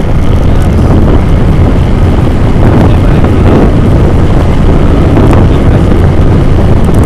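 Wind buffeting an action camera's microphone on a moving vehicle: a loud, steady rumble and rush, with the vehicle's running noise underneath.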